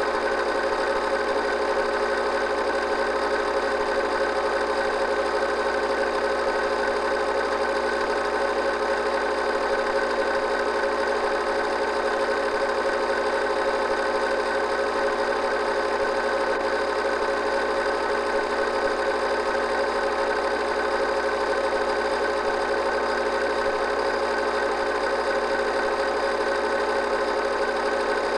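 8mm film projector running: a steady mechanical whir with a constant hum that never changes.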